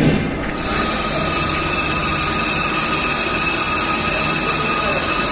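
CNC lathe running while threading a submersible pump section part: a steady mechanical whine with several high tones that sets in about half a second in, after a brief thump.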